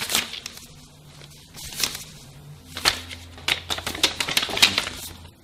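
A run of sharp clicks and paper flicks as small photo prints land on a wooden tabletop one after another, thickening into a quick patter in the second half, over a faint low hum.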